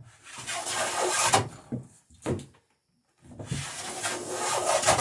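Hand plane cutting a bevel along the edge of a wooden dory plank: two long shaving strokes of about a second and a half each, with a short stroke between them.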